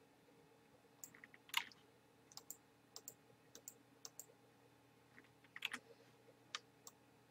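Faint, irregular clicks of a computer mouse and keyboard being used to edit text, a dozen or so short clicks with a cluster about a second and a half in and another near the end, over a faint steady hum.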